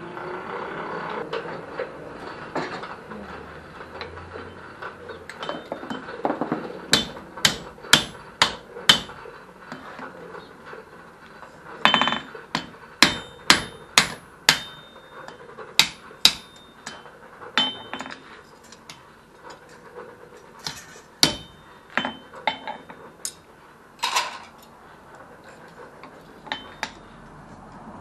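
Blacksmith's hand hammer striking a red-hot mild steel bar on an anvil, the blows coming in irregular clusters from about a quarter of the way in, each with a short metallic ring. The steel is worked hot so that it bends instead of cracking, as it would if bent cold.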